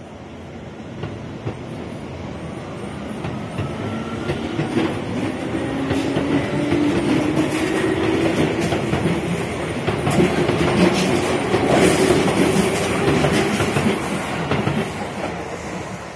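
A Keihan 2400 series electric commuter train pulls away from the platform. It gathers speed with a low hum that rises slightly in pitch and wheels clicking over the rail joints. The sound grows louder as the cars pass close by and fades near the end as the train leaves.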